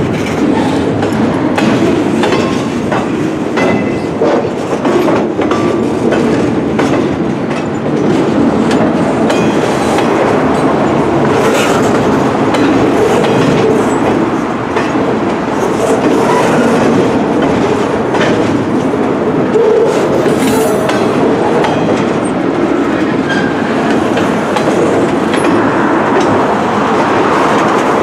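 Loaded freight-train flatcars rolling past at a steady speed: a continuous steel-wheel rumble with clickety-clack over the rail joints.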